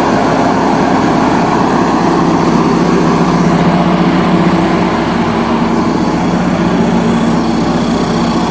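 Generac 27 kW liquid-cooled natural-gas home standby generator running steadily, its inline four-cylinder automotive engine held at about 1800 rpm. A steady engine hum, a little noisy.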